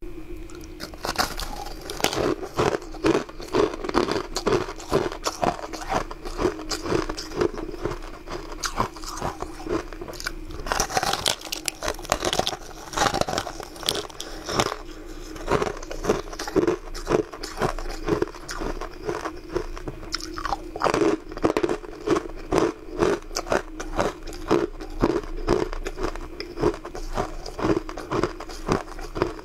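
Biting and chewing on crunchy pink icy chunks: a dense, uneven run of sharp crunches, several a second.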